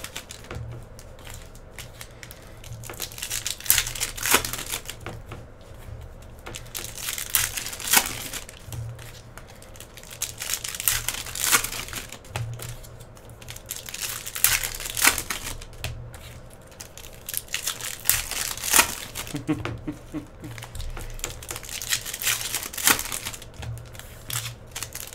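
Foil wrappers of 2016-17 Panini Prizm basketball hobby packs crinkling and tearing as they are ripped open by hand, with rustles every second or so.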